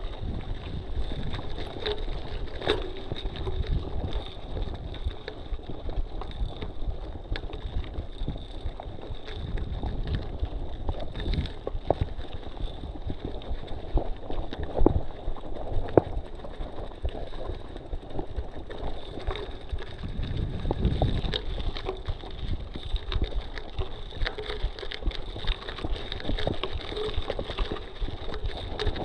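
Mountain bike riding slowly over a gravel road: tyres crunching on loose stones, with frequent small knocks and rattles from the bike over the rough surface, and wind rumbling on the microphone.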